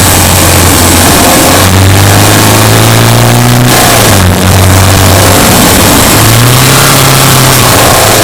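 Subaru Impreza Sport's flat-four engine pulling on the move, its pitch climbing, dropping sharply about four seconds in, then climbing again.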